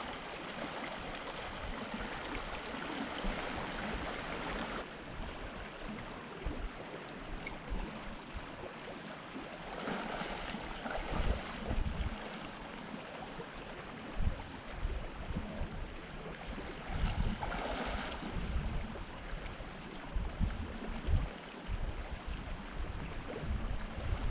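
Shallow, rocky mountain river running with a steady rush of water. After the cut about five seconds in, the flow is softer and irregular low rumbles come in and out.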